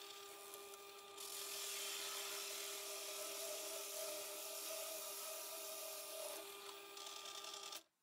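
Bench drill press motor running with a steady whine while a small hole saw cuts down through about a centimetre of old pine. A rasping cutting sound starts about a second in and eases off near the end. Everything cuts off suddenly just before the end.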